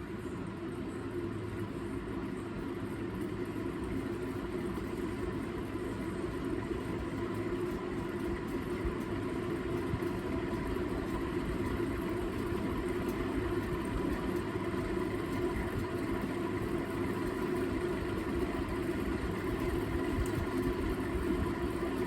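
CEC Georgian 303D ceiling fan running: a steady motor hum with a few held tones, growing gradually louder over the first several seconds and then holding steady.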